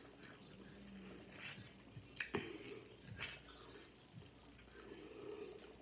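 Close-up eating sounds: soft wet chewing with scattered sharp mouth clicks and smacks, the sharpest a little past two seconds in.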